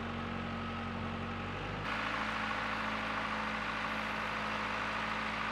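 Old Clark forklift's engine running steadily as it tows a heavily loaded boat trailer across grass. The sound changes abruptly about two seconds in, then the engine hum carries on.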